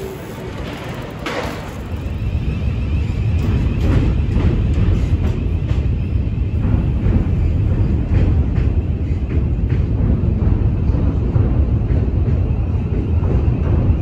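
Steady low rumble of outdoor city noise, getting louder about two seconds in, with a brief squeal about a second in.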